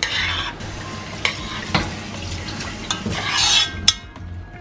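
Metal spoon stirring sticky rice in its sweet sauce in a pot: soft scraping stirring sounds, with a few sharp clicks as the spoon knocks the pot.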